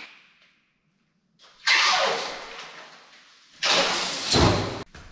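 Roller insect screens in window frames rattling along their guide rails as they are pulled and let go: two noisy bursts that start sharply and fade, after a short click at the start.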